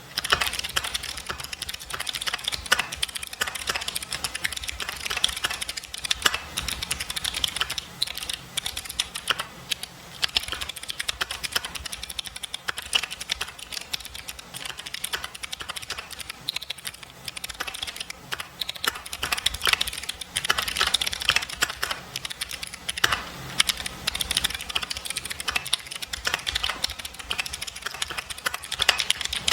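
Mechanical keyboard with jade switches being typed on fast and continuously: a dense clickety-clack of keystrokes, with a few short pauses between bursts.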